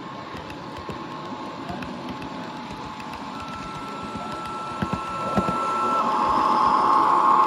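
Model railway train with a DSB MY diesel locomotive and red coaches running past on the track: a steady mechanical rattle with a thin steady whine, growing louder near the end as the locomotive draws near.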